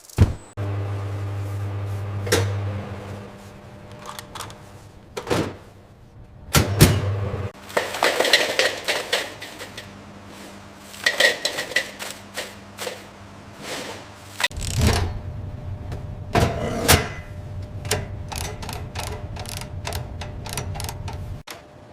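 Machinery humming, with many sharp clicks, knocks and clattering over it; the hum stops and starts, and a heavier low rumble sets in about halfway through.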